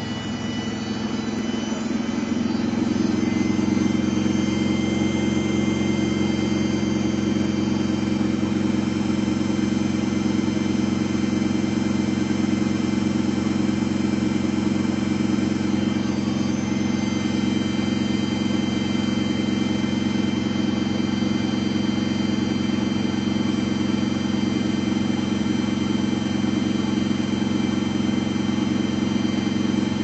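Samsung front-loading washing machine on a high-speed spin at 1350 rpm: a steady, loud machine hum and drone from the spinning drum and motor. It grows louder over the first few seconds, then holds even.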